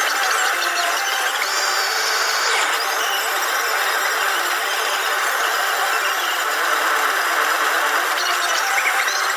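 Propane forge burner running with a steady hiss while a piece of steel heats in the forge.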